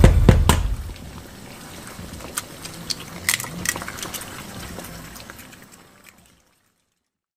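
Eggs being cracked into a hot frying pan: a faint liquid sizzle with a few sharp clicks and taps of shell on the pan. The sound fades out to silence near the end.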